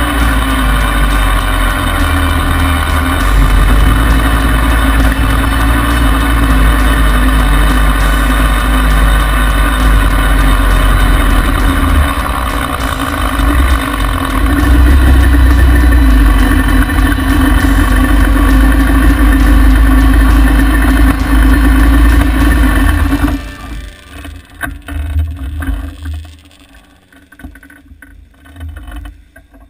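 Yamaha Banshee ATV's big-bore 421 twin-cylinder two-stroke engine running at fairly steady revs, with a heavy low rumble. The engine sound stops abruptly about 23 seconds in, leaving only faint irregular knocks and rustling.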